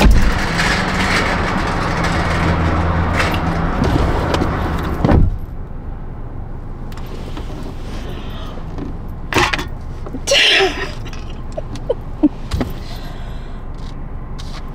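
Sounds of a car being loaded: steady noise with a low hum for about five seconds, ending in a heavy thump, like a car door or hatch shutting. After it things are quieter, with scattered clicks, knocks and a short rustle.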